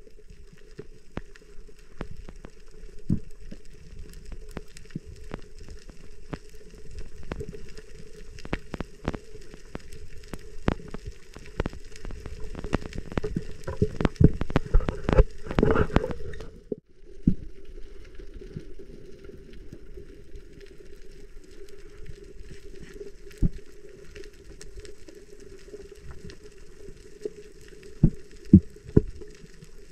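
Underwater sound through a diving camera's housing: a muffled steady hum with scattered clicks and crackling. The clicks thicken and grow louder for a few seconds, then stop abruptly about halfway through, and a few sharp knocks come near the end.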